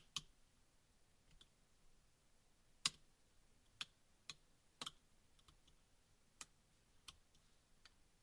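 Small, sharp metal clicks as a steel dental pick levers and prises at the edge of the tin-plated RF shielding lid on a Microsoft Lumia 532 circuit board. About eight clicks come at irregular intervals, the loudest about three seconds in.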